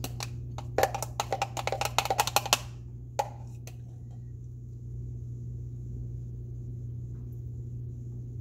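A metal spoon knocks and scrapes inside a plastic blender cup of thick blended shake. It makes a quick run of about fifteen sharp clicks over two and a half seconds, then two more a moment later.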